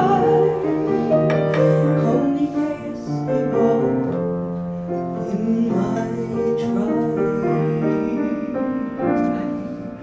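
Grand piano playing slow, sustained chords and melody, with a woman's singing voice joining at times.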